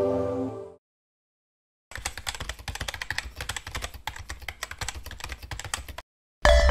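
Computer keyboard typing sound effect: a rapid, irregular run of key clicks lasting about four seconds. Soft background music fades out just before it, and music returns right after it ends.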